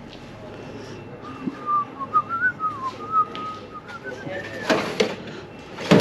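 A person whistling a short wavering tune, followed by a few knocks or clatter near the end.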